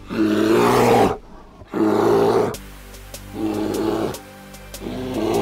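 Recorded animal roar sound effect: four rough, pitched calls of about a second each with short gaps between them, over background music.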